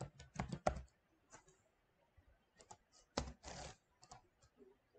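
Typing on a computer keyboard: a quick run of keystrokes in the first second, then scattered single clicks.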